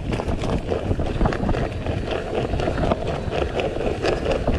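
Wind buffeting the microphone and a mountain bike rolling fast down a rough dirt track: tyre rumble over the ruts, with the bike rattling and clicking.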